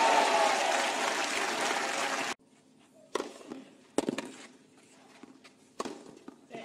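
Tennis crowd applauding and cheering a won point, cut off abruptly about two seconds in. Then, against quiet, three sharp tennis-ball impacts, from bounces and racket hits.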